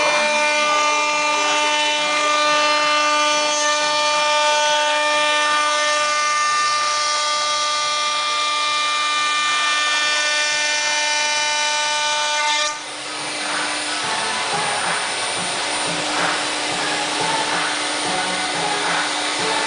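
CNC router spindle and end mill cutting 1/4-inch aluminum plate: a steady, loud high-pitched whine made of many tones. About 13 seconds in, the whine gives way to a harsher hissing cutting noise, and the steady tones come back near the end.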